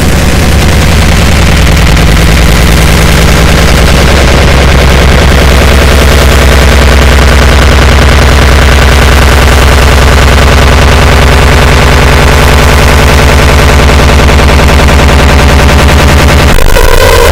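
Deliberately distorted, bass-boosted 'earrape' audio played at full volume and clipping, a dense rapid rattle over a heavy steady bass drone. The sound shifts a little before the end.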